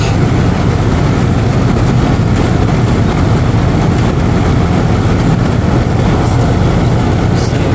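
Outdoor air-conditioning condenser unit running: the compressor's steady low hum under the rush of the top-mounted condenser fan, heard close up.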